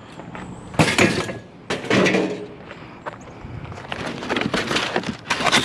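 Scrap pieces being handled and moved through a junk pile, giving several bouts of clattering and knocking: one about a second in, another around two seconds, and a longer run of clatter near the end.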